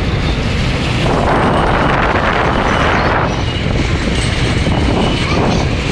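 Train running over a bridge, heard from inside the carriage by the window: a steady low rumble with a rushing noise that swells from about a second in and eases after about three seconds.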